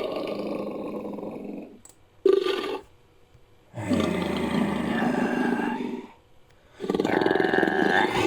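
A series of rough, pulsing animal-like roars made as creature sound effects: one tails off about two seconds in, then comes a short roar, then two longer roars of about two seconds each, with short pauses between.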